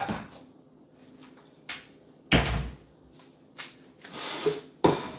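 Kitchen knocks and bumps as a plate is fetched: a heavy thump about two seconds in, lighter knocks after it, a short rustle around four seconds and a sharp knock near the end.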